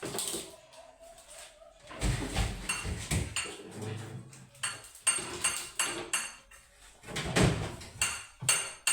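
Dishes and food containers clinking and knocking against each other and against shelves as they are handled, in a quick irregular series of knocks, some with a short bright ring.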